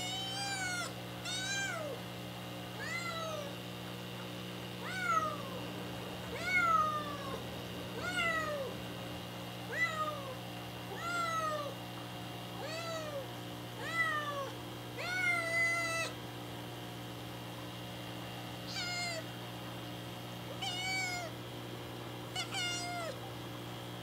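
Young black kitten meowing over and over, high calls about every second and a half, each rising then falling, with a short pause about two-thirds of the way through. These are the constant cries of a newly rescued kitten in an unfamiliar home, which the owner thinks may come from the strange place or from her searching for her mother.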